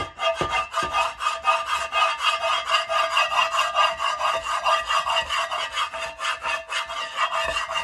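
Plastic scraper edge of a kitchen brush rasping quickly back and forth over the baked-on crust of a stoneware baking pan, in rapid, even strokes.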